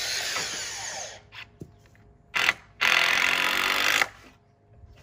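Power drill running in bursts against the wooden fence rails: a run that stops about a second in, a short burst at about two and a half seconds, then a longer run of about a second.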